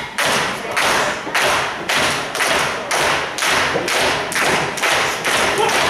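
Wrestling crowd clapping in unison to a steady beat, a little under two claps a second.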